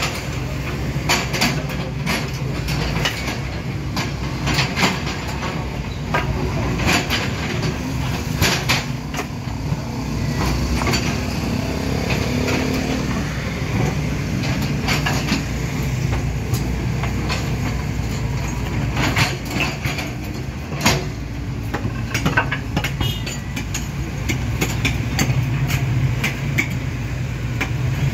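Mini excavator's engine running steadily while it digs and loads a dump truck, with frequent sharp knocks and clanks of the work throughout.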